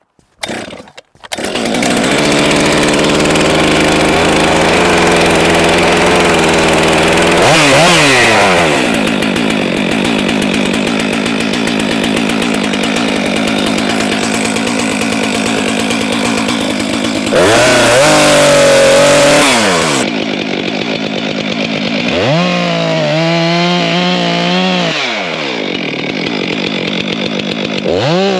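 Small chainsaw running loud, starting about a second in, settling to a steady idle and revving up and back down again several times while limbing a felled pine tree.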